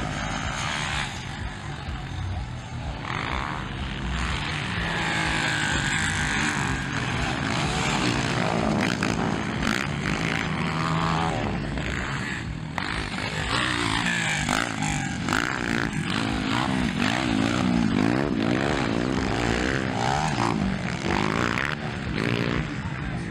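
Motocross dirt bike engines revving hard and easing off as riders race around the track, the pitch rising and falling again and again.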